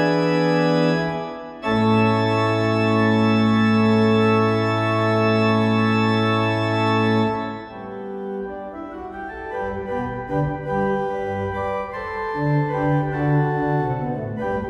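Two-manual electronic organ playing. A piece closes on a long held chord that fades out about seven and a half seconds in. A new piece then starts with quicker, shorter notes over a moving bass line.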